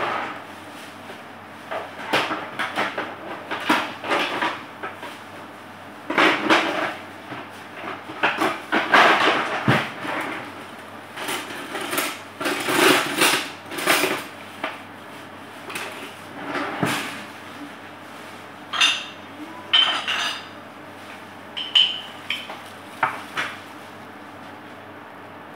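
Kitchen clatter as dishes and utensils are handled: irregular knocks and scrapes, with a few ringing clinks near the end.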